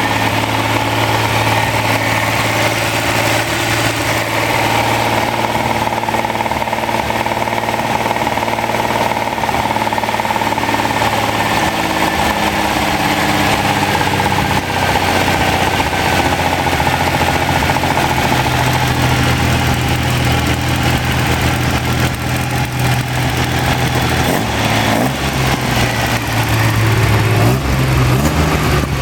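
Freshly rebuilt Ferrari Dino 246 GT V6 engine running on a test stand, mostly at a steady idle. Its pitch shifts slightly about halfway through and again near the end.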